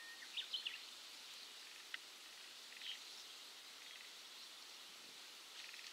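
Faint outdoor ambience at the water's edge: a steady high hiss, with a few short bird chirps about half a second in, a single sharp tick near two seconds, and a brief buzzy call near three seconds and again near the end.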